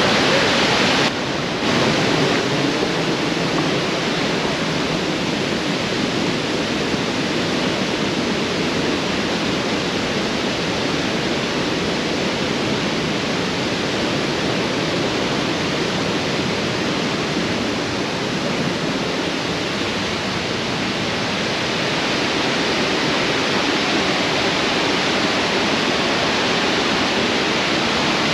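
Steady rushing of Burney Falls, a large waterfall, with its spray and falling water heard close by. It dips briefly about a second in.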